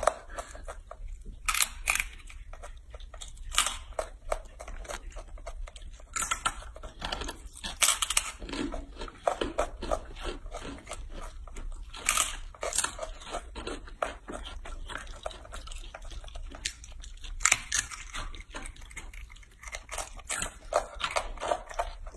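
A young macaque biting and chewing crisp dried fruit and vegetable chips, with irregular sharp crunches.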